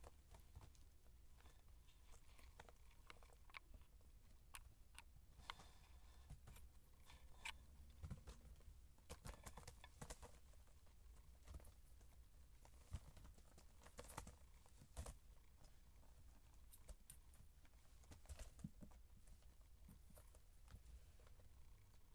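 Faint, scattered taps and scuffles of Siamese kittens at play: small plastic balls knocking and paws scrabbling on a blanket-covered floor, the taps coming thicker around the middle.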